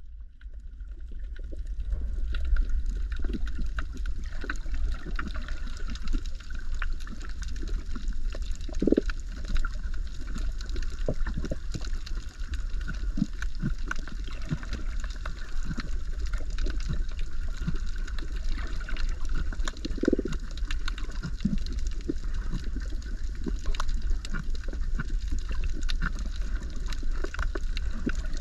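Underwater sound picked up by a camera held below the surface on a reef: a steady low rumble with constant fine crackling, and a couple of short louder gurgles about a third and two thirds of the way in.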